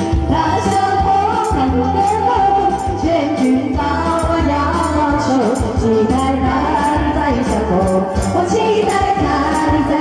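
A woman singing into a handheld microphone over loud backing music with a steady beat.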